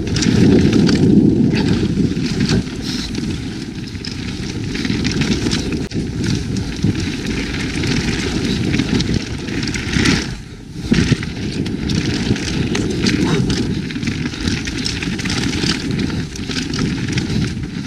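Mountain bike riding down a dirt trail: wind rushing over the camera microphone, with tyres crunching over dirt and rocks and frequent rattling clicks from the bike. The noise eases briefly about ten seconds in.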